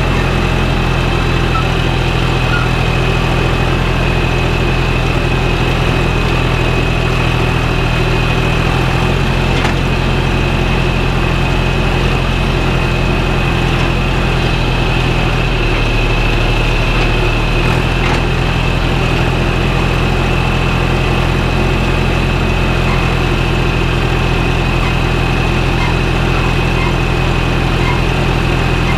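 Tractor engine running at a steady speed while pulling a land roller, with a steady high whine above the engine note.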